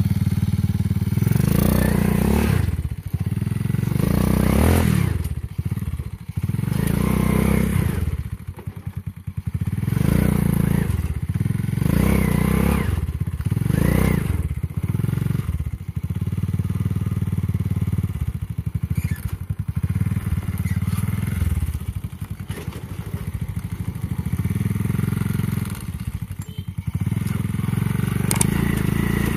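Motorcycle engine of a homemade four-wheel-drive ATV running, its speed rising and falling repeatedly every second or two as the throttle is opened and eased off.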